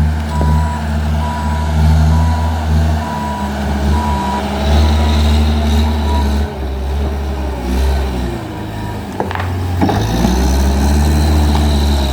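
JCB 155 skid steer loader's diesel engine running, its note dropping and rising several times as the load changes, with a reversing alarm beeping steadily through the first half. A few sharp knocks sound about nine to ten seconds in.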